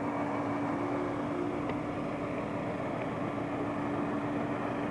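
Diesel engine of road-construction machinery running steadily, with a constant drone.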